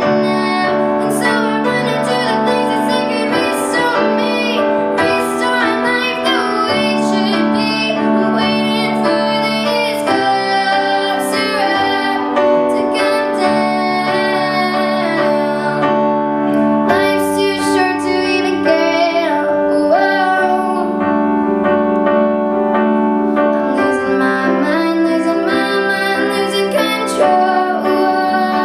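A female voice singing with piano accompaniment.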